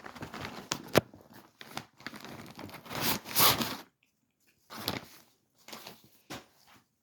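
Crinkling and rustling as a cross stitch piece is handled, with a sharp click about a second in and the loudest rustle in the middle; a few shorter rustles follow after a brief pause.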